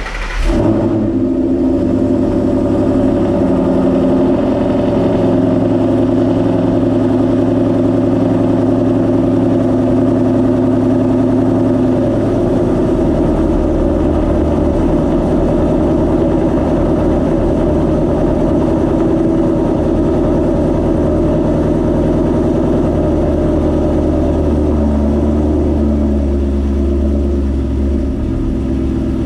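Ford Mustang Boss 302's 5.0-litre Road Runner V8, with Dynatech long-tube headers, a Calimer stage 3 setup and the over-axle exhaust pipe removed, catching on a cold start and running loud at a fast cold idle. The idle steps down about twelve seconds in and again near the end.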